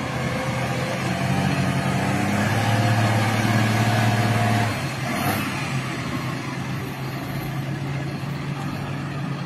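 Heavy truck's diesel engine working hard under load as the truck struggles to pull out of deep mud. It builds to a loud, steady pull, eases off abruptly about halfway through, then keeps running at lower power.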